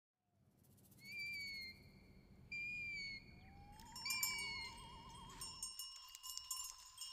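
Birds calling with short whistled notes, three times about a second and a half apart, then a rising note that warbles and holds. From about four seconds in, small bells start jingling alongside the calls.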